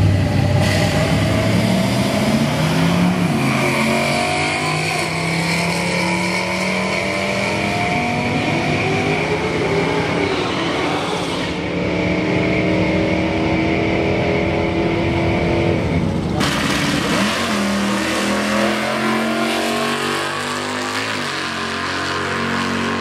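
Drag race cars launching and accelerating down a quarter-mile drag strip, engines revving hard with the pitch climbing and then dropping at each gear change; the sound changes abruptly about 16 seconds in as a different run is heard.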